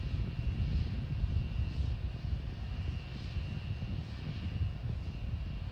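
Distant, steady low rumble of the Starship SN8 rocket's flight as heard from the ground, easing slightly after the first second, with a faint high whine that comes and goes.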